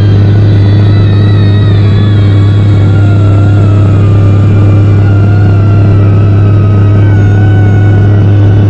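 Steady loud low drone of a car driving on the highway, with faint wavering musical tones over it.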